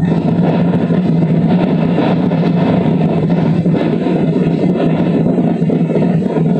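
Boat engine running steadily, a low drone with a rushing haze over it. It is old camcorder audio replayed through a laptop speaker.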